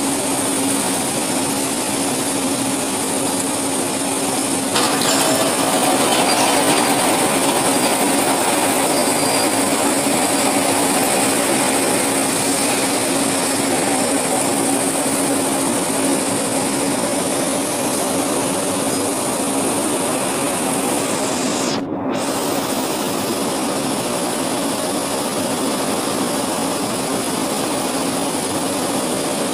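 Steel-mill continuous-casting and billet-transfer machinery (roller tables and chain transfer) running: a steady mechanical hum with one constant low tone over a wide hiss. It grows a little louder about five seconds in and drops out for an instant about three quarters of the way through.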